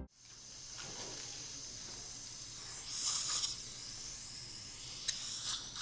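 Dental surgical suction hissing steadily during a tooth extraction, swelling louder for a moment about three seconds in and again near the end, with a sharp click of metal instruments about five seconds in.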